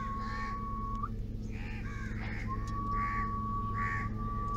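Crows cawing over and over, about five short calls spaced roughly half a second to a second apart. Underneath runs a steady high whine that stops about a second in and comes back a second and a half later, over a steady low hum.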